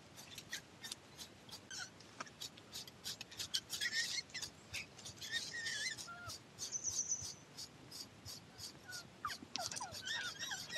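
A metal shedding comb raking a Hokkaido dog's thick undercoat in quick short strokes, about four a second. A dog whines in short high cries now and then, most around the middle and near the end.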